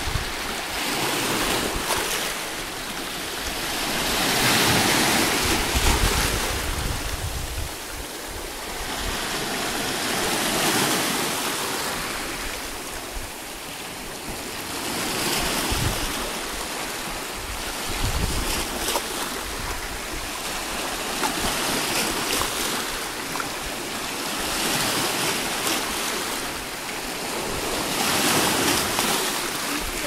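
Small Irish Sea waves breaking and washing over a rocky shore, a steady hiss that swells and fades every few seconds. Now and then wind rumbles on the microphone.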